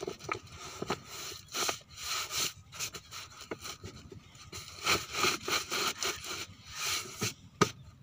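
Thick plastic lay-flat irrigation pipe rustling and scraping in irregular bursts as it is worked onto a pump's metal outlet pipe by hand.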